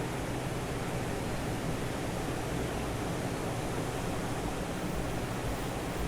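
Steady wash of Gulf of Mexico surf on the beach, an even rushing noise with no break.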